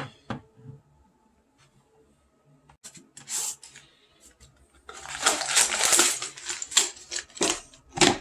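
Handling the box and plastic bag of PBT keycaps: a few light clicks, then from about halfway the bag crinkling and the plastic keycaps clattering against each other.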